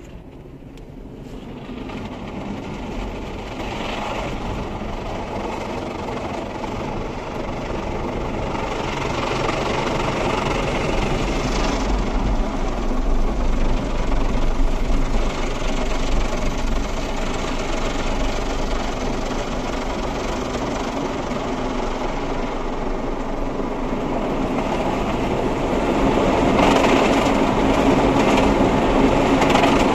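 Automatic car wash heard from inside the car's cabin: rotating brushes and water spray working over the body and windows, a steady mechanical rumble. It swells over the first few seconds and grows louder again near the end.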